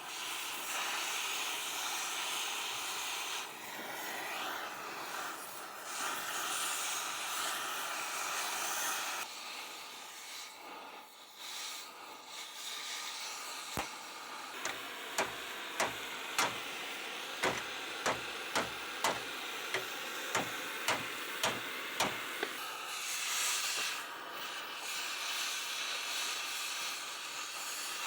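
Oxy-acetylene cutting torch hissing steadily as it burns through old truck metal. Near the middle the hiss drops back and a run of about a dozen sharp metallic taps comes, roughly two a second.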